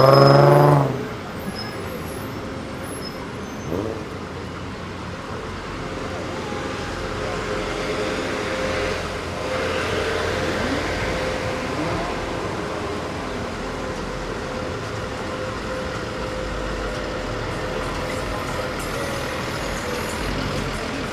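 Road traffic: a passing car's engine revving up with a rising pitch at the start, then a trolley bus's engine idling with a steady hum and low rumble, growing a little louder about eight seconds in.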